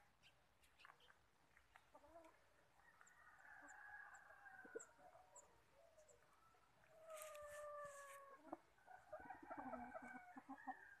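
Chickens calling faintly: two drawn-out calls, one about three seconds in and another about seven seconds in, then a run of shorter clucks near the end.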